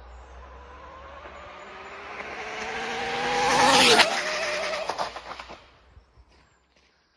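Speed-run RC car with a Castle 1721 2400kv brushless motor passing at high speed: a motor and drivetrain whine grows louder, drops sharply in pitch as it goes by about four seconds in, then fades away. A few sharp knocks come just after it passes.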